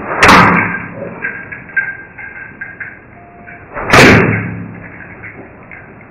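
Two loud, heavy bangs about four seconds apart, each followed by a short, low ringing tail as it dies away.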